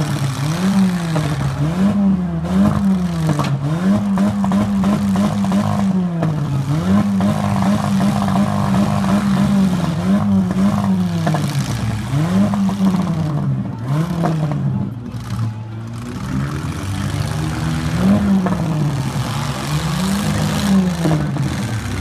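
Demolition derby car engines revving up and down over and over, each rise and fall lasting about a second or two.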